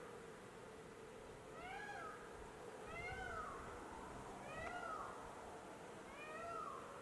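Four mewing, cat-like calls, each rising then falling in pitch, repeated about a second and a half apart over faint outdoor hiss.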